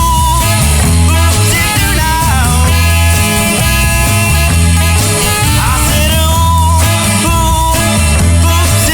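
1960s-style rock band recording: bass and drums under a melodic line that bends in pitch, with some singing.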